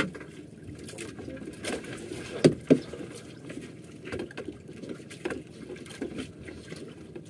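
Small wooden outrigger sailboat under way: a steady wash of water against the hull with irregular knocks, and two louder thumps close together about two and a half seconds in.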